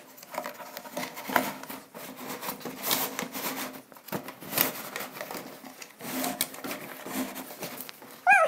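Cloth wardrobe cover rustling and the plastic shelf frame giving irregular light clicks and knocks as the cover is pulled down over it. A brief vocal sound comes near the end.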